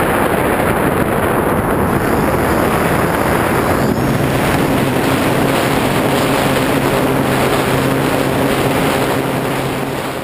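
Heavy wind rushing over the microphone of a GoPro carried on a radio-controlled aircraft in flight, with the steady hum of the aircraft's motor coming through from about four seconds in.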